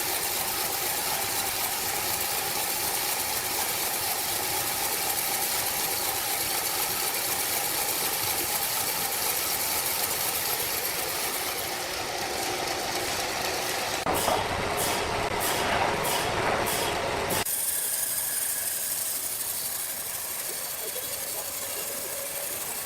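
Sawmill machinery running with a steady mechanical noise. About two-thirds of the way through, a louder stretch of a few seconds with a quick repeating beat stops abruptly, and the noise carries on quieter.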